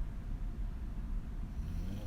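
A woman snoring on her back with her mouth open: a pause between snores filled with low breathing rumble, then a new snoring inhale rising in pitch near the end.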